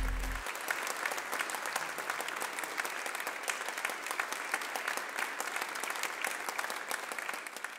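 Audience applauding, many people clapping. The film's music stops about half a second in.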